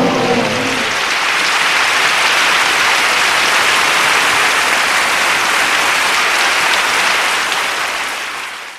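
Crowd applause, with a brief burst of cheering voices at the start, fading out near the end.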